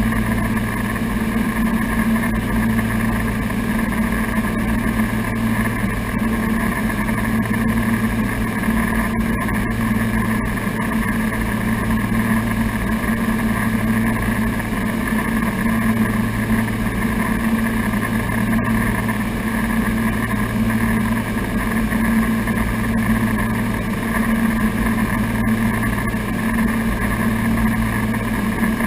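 Twin piston engines and propellers of a Piper Navajo at cruise, heard inside the cockpit. They make a steady, loud drone with a slow wavering beat between the two engines.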